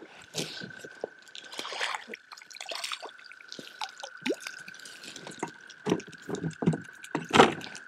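Water splashing and dripping beside a kayak as a small hooked trout is drawn in and taken by hand, with scattered clicks and knocks of handling. The loudest splash comes near the end.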